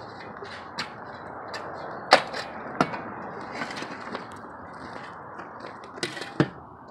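Steel shovel working rocky trench soil: scraping, with a handful of sharp clacks as the blade strikes stones. The loudest clacks come about two seconds in and again near the end, over a steady background hiss.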